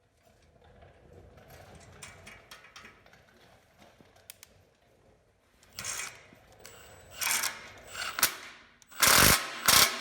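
Tool work on metal parts: faint handling at first, then a run of short, sharp mechanical bursts from about six seconds in, growing louder, with the loudest ones near the end.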